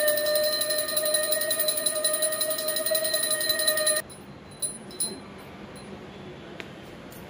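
A conch shell (shankh) blown in one long steady note over the fast, continuous ringing of a small hand bell during aarti; both cut off suddenly about four seconds in, leaving quieter room sound with a few soft knocks.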